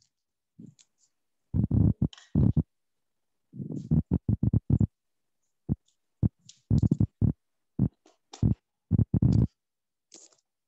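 A person's voice, muffled and distorted, coming through in short choppy bursts that cut in and out in three clusters.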